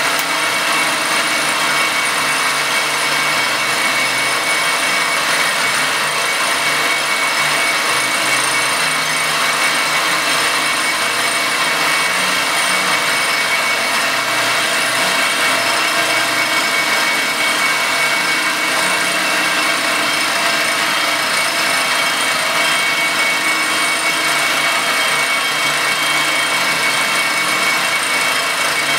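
Circa-1948 Gorton 8-1/2D milling machine cutting an aluminum casting: a steady, unbroken cutting noise with a few constant high tones from the spindle and cutter.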